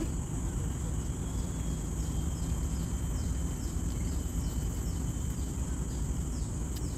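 Steady high-pitched insect drone over a low, even rumble of outdoor background noise.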